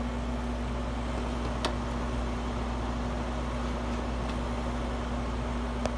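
Early-1990s Fedders 5100 BTU window air conditioner running on high cool: its fan blowing over a steady hum from the Rotorex compressor. A light click comes about a second and a half in and another near the end.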